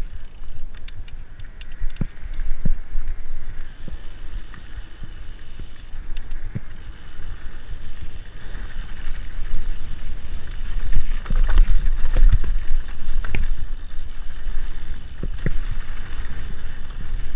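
Mountain bike riding fast down a dirt trail: a steady low rumble of wind on the camera microphone and tyres rolling over dirt, with scattered knocks and rattles from the bike over bumps.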